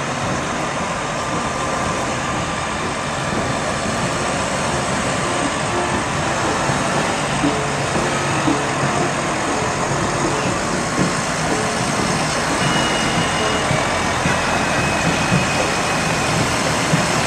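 Fire engine and ambulance rolling slowly past at walking pace, their engines running low, growing slightly louder toward the end as the fire engine draws near.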